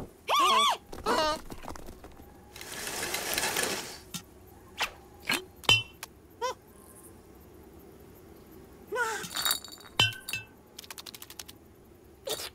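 Cartoon sound effects with no music: a few short, squeaky character vocal noises, a rush of noise, and sharp clinks and knocks of a glass bottle. Near the end comes a quick run of light taps.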